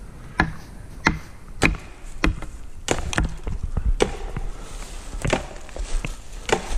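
Footsteps crunching through dry fallen leaves and twigs at a walking pace, a sharp crackling step about every two-thirds of a second.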